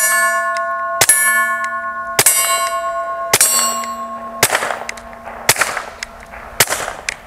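Suppressed Taurus TX22 pistol firing Remington Golden Bullet .22 LR, six shots about one a second. The first three ring a steel plate target, each hit leaving a bright ring that lasts until the next shot. The last three bring no ring: misses, which the shooter blames on the suppressor throwing bullets.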